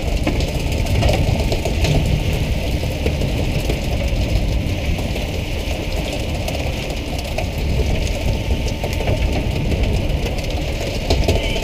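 Steady noise of a pole-and-line tuna boat: the engine running under a dense hiss and patter of water from the deck sprayers raining onto the sea beside the hull, the spray used to excite the tuna.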